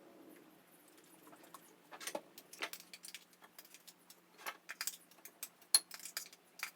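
Irregular small clicks and taps of kitchen things being handled, starting about two seconds in, with one sharper click near the end.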